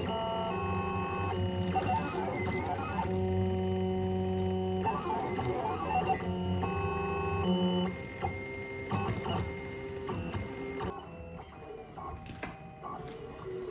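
Tina 2 mini 3D printer printing: its stepper motors hum in steady, musical tones that jump to a new pitch every fraction of a second to a second as the print head changes moves, with a few sweeping tones. It turns quieter after about eight seconds.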